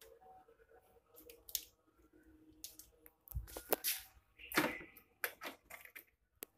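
Handling noise: irregular rustles, scrapes and knocks from a phone being moved around, with a louder cluster of knocks and a low thud in the middle. A faint steady hum sits underneath.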